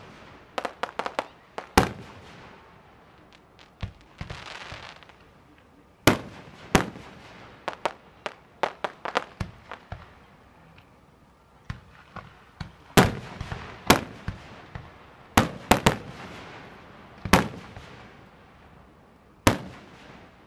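Aerial fireworks shells bursting overhead: a series of sharp bangs, some coming in quick runs of smaller pops, with a spell of hissing about four seconds in.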